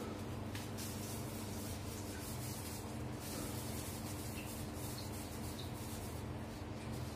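Plastic-gloved hands rubbing together, a soft steady rustle, over a constant low hum.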